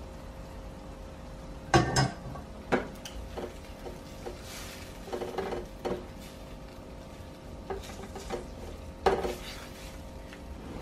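A spatula stirring fettuccine in cream sauce in a stainless steel pan, with a series of sharp clanks and scrapes against the pan, the loudest about two seconds in and again about nine seconds in. A steady low hum runs underneath.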